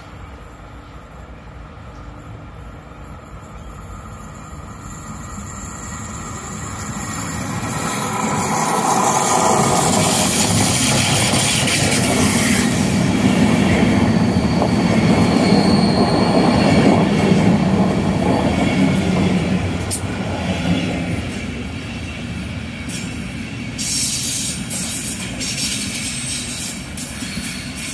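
Locomotive-hauled passenger train approaching and passing close by, its coaches rolling past with a dense rumble that builds over several seconds, peaks about halfway through and then eases off. A brief high wheel squeal comes in the middle, and wheel clicks over the rail joints come near the end.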